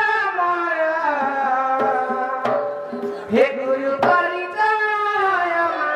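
Sambalpuri danda song sung into a microphone in long, held, gliding notes, with a few sharp drum strokes from the accompanying drum about halfway through.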